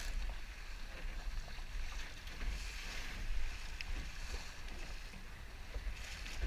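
Water rushing and hissing along the hull of a sailboat heeled over under sail, with wind rumbling on the microphone.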